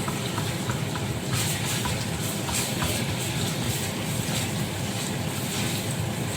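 Garlic paste frying in hot oil in a pan: a steady sizzle with scattered small crackles over a constant low hum.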